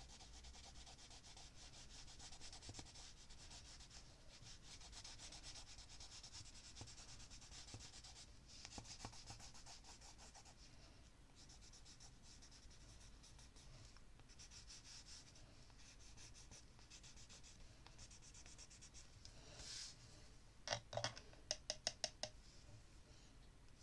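Faint scratching and rubbing of an ink-loaded stick dragged across collage paper in short strokes. Near the end comes a quick run of about eight light taps.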